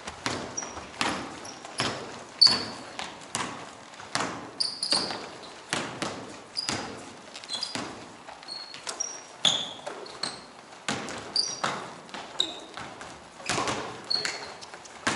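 Basketballs bouncing on an indoor court floor, sharp irregular thuds about one or two a second, with short high sneaker squeaks in between, echoing in a large gym.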